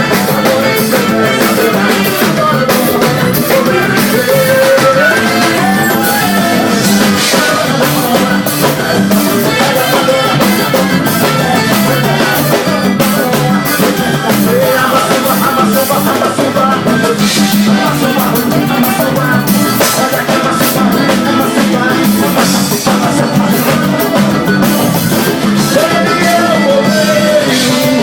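A live forró band playing a song, the drum kit keeping a steady beat under melodic lines.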